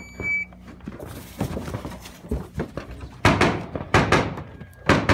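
A shot timer gives its start beep, a short steady electronic tone. Then come scrambling knocks and three louder thumps, a little under a second apart near the end, as a shooter crawls through a corrugated plastic culvert and onto a wooden platform.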